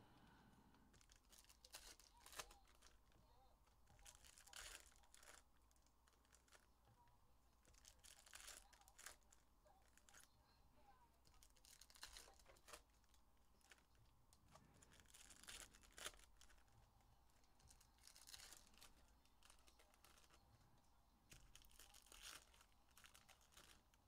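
Faint tearing and crinkling of trading-card pack wrappers being ripped open and cards handled, in short irregular bursts every second or few.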